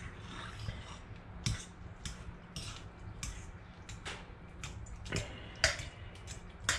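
Hands working a wet rice pudding mixture in a bowl: scattered soft clicks, taps and brief rustling, with a few light knocks against the bowl.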